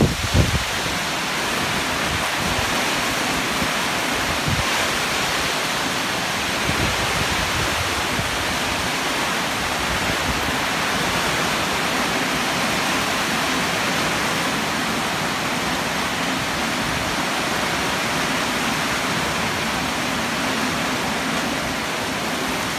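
Heavy typhoon rain and wind: a steady, even hiss of downpour, with wind buffeting the microphone for a moment at the very start.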